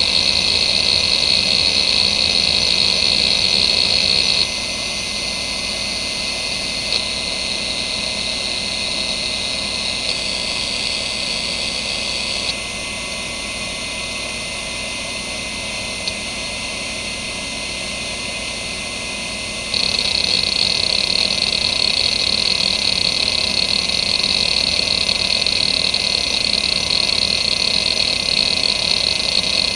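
Seagate ST9144A 2.5-inch hard drive (1992) seeking continuously under a benchmark: a dense buzzing head-actuator chatter over a steady whine, from a drive in healthy condition. The chatter steps down in level about four seconds in, drops further about twelve seconds in, then comes back loud about two-thirds of the way through.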